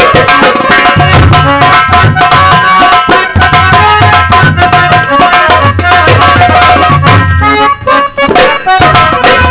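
Instrumental Indian folk-style music: a harmonium playing a film-song melody over fast, dense nakkara and dholak drumming with a heavy bass, briefly dropping out about eight seconds in.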